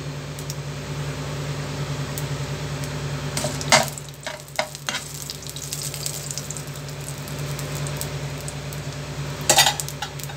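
Mustard seeds and urad dal sizzling in a teaspoon of hot oil in a nonstick frying pan during tempering. A few sharp pops come about three and a half seconds in and again near the end.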